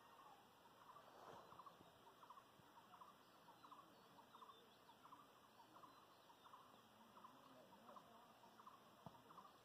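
Near silence: faint outdoor ambience with a short chirp-like call repeating about twice a second.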